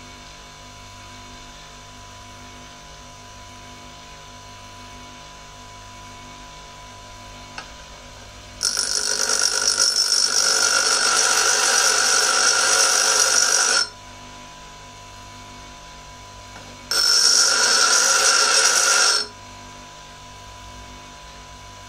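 Bench grinder motor running steadily, then a lathe parting-off tool's steel pressed against the spinning wheel twice: a loud grinding screech lasting about five seconds from about nine seconds in, and a shorter one of about two seconds near the end. The tool's clearance angles are being ground in.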